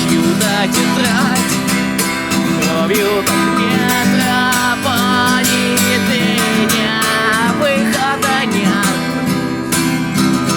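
Acoustic guitar strummed as a song accompaniment, steady and continuous.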